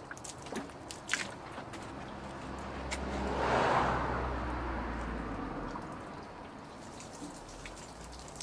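Water poured from a plastic watering can splashing onto a plastic wheelie bin, while a passing vehicle's noise swells to its loudest about three and a half seconds in and then fades.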